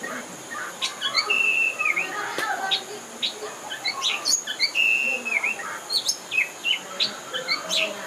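Oriental magpie-robin of the black-bellied Bornean form singing: a varied run of short whistles and chirps, with a drawn-out whistle that dips at its end, sung three times.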